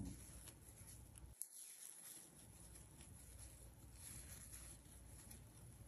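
Near silence with faint scratchy rustling and small ticks from yarn drawn over a crochet hook as double crochet stitches are worked.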